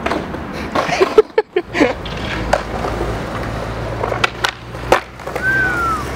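Skateboard wheels rolling on concrete, with several sharp clacks of the board bunched about four to five seconds in. A brief falling whistle or squeak near the end.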